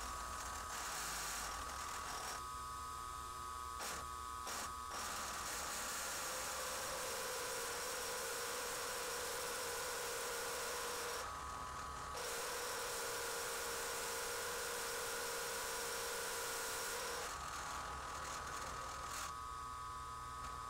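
Milling machine running with a face mill cutting a metal anvil block: a steady motor whine and hum, with a lower steady tone that joins about six seconds in, breaks off briefly, and drops out a few seconds before the end.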